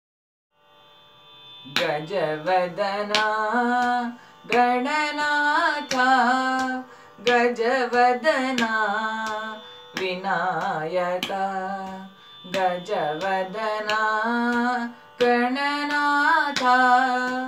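A boy singing a Carnatic-style devotional song to Ganesha, with long phrases of sliding, ornamented notes over a steady drone. The drone comes in first, and the voice enters about two seconds in.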